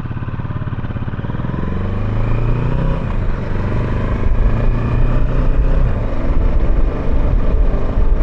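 Kawasaki Versys 650 parallel-twin engine accelerating, its pitch rising and getting louder over the first three seconds, then running hard with a rough low rumble and wind rush.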